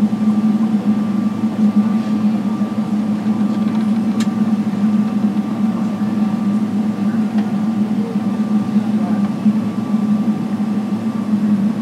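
Steady interior cabin drone of a Boeing 777-300ER taxiing after landing, its GE90 engines at idle: a low hum with two faint, steady higher whines. A single sharp click about four seconds in.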